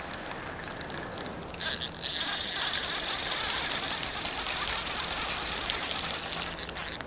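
Daiwa Revros 1000 spinning reel's drag buzzing as a hooked mahi-mahi pulls line off, starting suddenly about a second and a half in as a steady high whine with a hiss over it.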